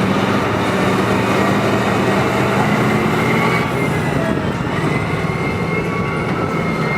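Motor scraper's diesel engine running steadily, a loud even drone with a faint high whine above it.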